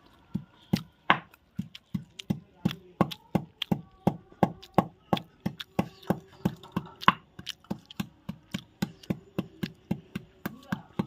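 Hand-held grinding stone (nora) knocking on a flat stone slab (shil) in a steady rhythm, about three to four strikes a second, as a paste is crushed on the slab.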